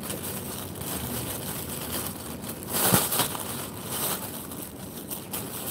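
Thin white plastic bag crinkling and rustling as it is handled and twisted at the top, with a louder rustle about three seconds in.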